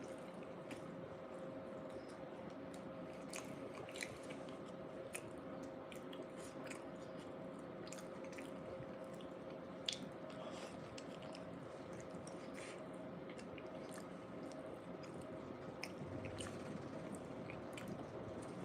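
A person chewing mouthfuls of soft bean burrito close to the microphone, with small wet clicks and squishes scattered throughout. A steady faint hum runs underneath.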